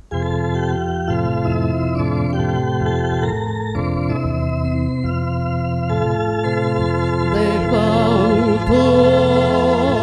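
Church organ playing the opening of the offertory hymn in sustained held chords, starting suddenly. A singing voice joins about three-quarters of the way in.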